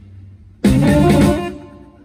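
Live rock band with electric guitar, bass and drums playing a stop-time passage: a sudden accented full-band hit about a third of the way in rings out and fades, between quieter gaps.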